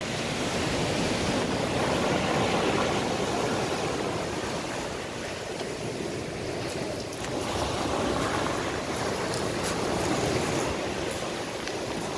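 Sea surf breaking and washing up a pebble beach, the rush of water swelling and easing with each wave.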